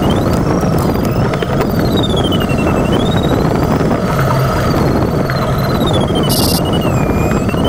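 Steady rush of airflow around an LS4B glider's cockpit canopy, with the variometer's electronic tone sliding slowly up and down in pitch as the climb rate changes. A brief hiss about six seconds in.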